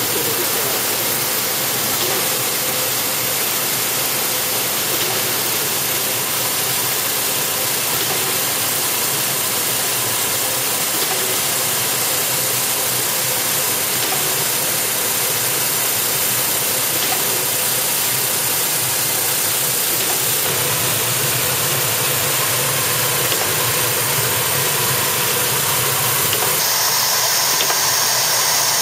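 Aluminium corrugated fin machine running: a steady mechanical whir with a strong hiss from the coil feed and toothed corrugating rolls. The hiss turns brighter near the end.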